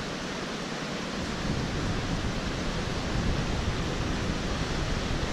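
Steady rushing of the Linville River, a large mountain river, with wind rumbling on the microphone that grows deeper about a second and a half in.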